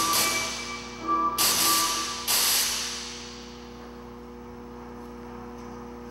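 Sampled electronic sounds set off by the dancer's arm movements through an acceleration sensor: four sudden bursts of noise with ringing tones over the first two and a half seconds, then dying away to a steady hum.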